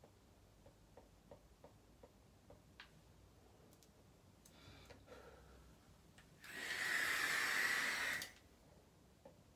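A long draw on two vape mods held together at the mouth: a loud, steady airy hiss lasting nearly two seconds, starting past the middle and cutting off near the end. Faint ticks come before it.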